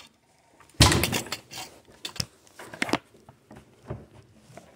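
Handling noise from a phone being moved and covered: a loud rubbing rustle about a second in, then scattered rustling and a few sharp knocks.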